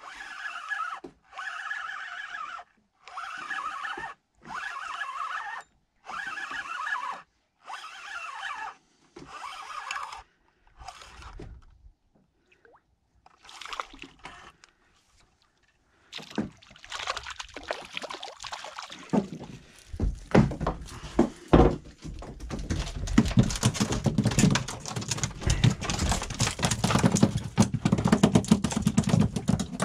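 Fishing reel wound in short bursts of about a second each, a brief pause between turns, as mackerel are reeled in. From a little past halfway, irregular thumps and knocks as the landed mackerel flap on the boat's fibreglass deck and are handled for unhooking.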